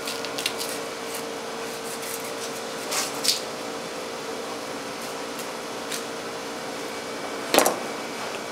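A steady machine hum with a faint steady tone, broken by a few sharp clicks and knocks, the loudest near the end.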